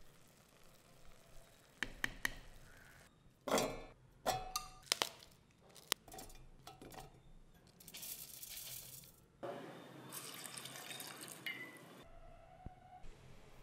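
Clinks and knocks as coconut pieces and green chillies are dropped into a stainless-steel mixer-grinder jar, followed by a stretch of trickling, pouring water as a little water is added.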